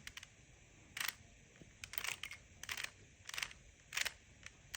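Plastic Rubik's Cube being twisted by hand: about six short clicking turns, under a second apart. These are the last turns of the final step of the solve.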